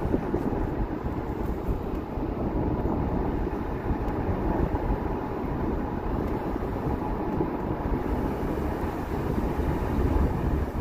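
Steady road and engine noise of a moving vehicle, heard from inside it.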